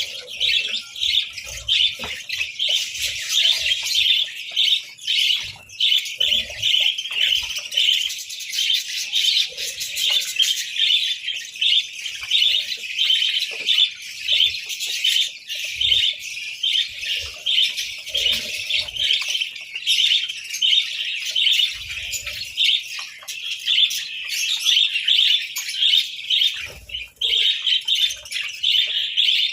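A flock of budgerigars chirping and warbling continuously, many birds at once, with a few brief low thumps now and then.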